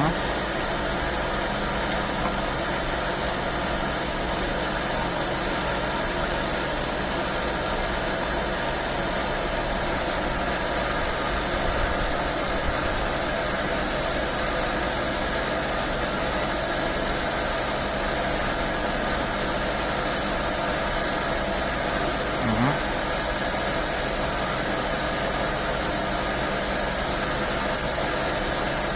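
MAHO MH 300 universal milling machine running at a steady speed, a constant mechanical hum that does not change.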